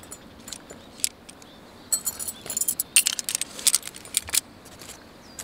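Folding black metal stand being lifted out of its hard case and unfolded, its thin metal legs clinking and rattling. The clinks come in quick clusters, loudest about two seconds in and again from three to four seconds in.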